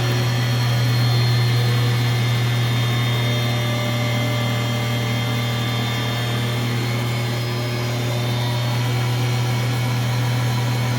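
Milling machine spindle running at 5500 rpm with a single-insert 2-inch face mill taking a light .005-inch finishing cut: a steady, even machine hum with a strong low drone and several steady higher tones above it.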